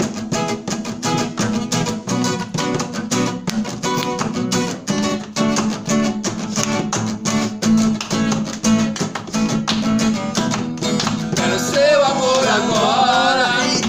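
Acoustic guitar played by hand, a steady rhythm of strummed and picked chords. A man's voice comes in singing near the end.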